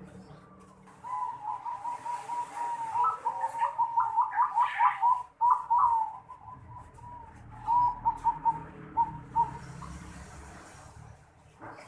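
Zebra dove (perkutut) cooing in the unusual song style keepers call 'noklak': a long run of quick staccato notes starting about a second in, then a shorter phrase of a few notes a couple of seconds later.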